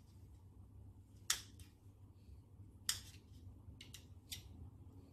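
A knife and spoon clicking against a plate as pineapple chunks are cut into smaller pieces: four or so sharp, spaced clicks over a faint low hum.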